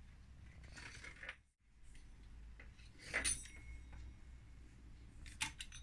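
Faint handling sounds of a fluted metal pastry wheel and a plastic rolling pin on a countertop as dough is cut into strips: a few light knocks and clinks, the loudest about three seconds in and a quick run of clicks near the end.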